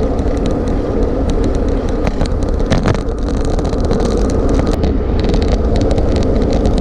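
Steady low rumble of wind and road noise on the microphone while riding a road bicycle, with scattered light clicks.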